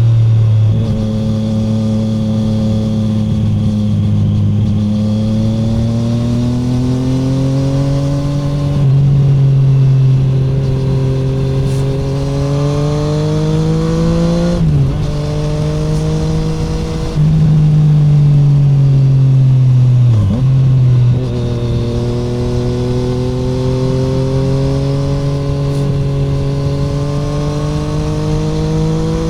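Triumph Street Triple 765R's inline three-cylinder engine heard through an open SC Project SC1-R titanium exhaust with the dB killer removed. Under steady throttle its pitch climbs slowly in long pulls, broken several times by abrupt drops and jumps as gears change.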